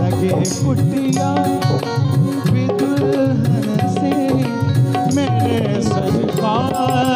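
Live devotional bhajan music: an electronic keyboard playing a bending melody line over a brisk tabla rhythm.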